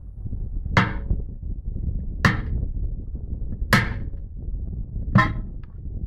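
Four heavy hammer blows on metal, about one and a half seconds apart, each with a short ring: a truck tyre being worked on its steel wheel rim by hand.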